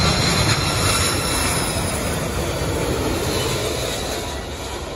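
Jet engines of a twin-engine airliner on final approach with gear down, passing low and close: a steady roar with a thin high whine, loudest about a second in and easing slightly toward the end.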